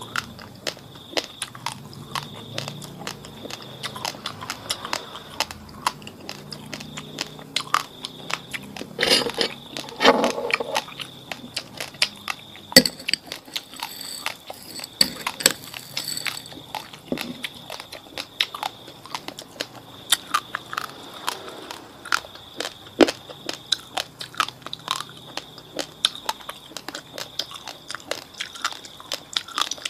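Close-up crunching and chewing of raw, fridge-chilled basmati rice: a dense, irregular run of sharp crackly crunches as the dry grains are bitten and ground. A faint steady high whine sits underneath.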